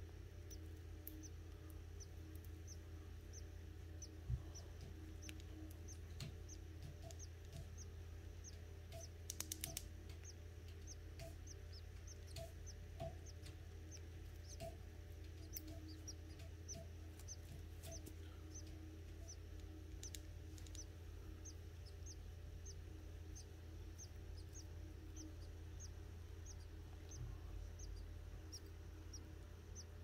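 Canary nestlings under the brooding hen giving faint, short high peeps over and over, about two a second, with a quick run of clicks about nine seconds in.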